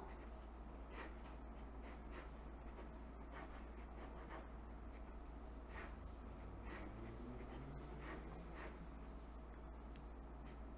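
Faint strokes of a ballpoint pen on paper as straight lines are drawn, a short scratch about once a second.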